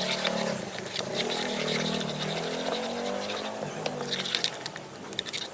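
Sticky slime being stirred and kneaded, a quick run of small wet clicks and pops, over a low drone during the first four seconds.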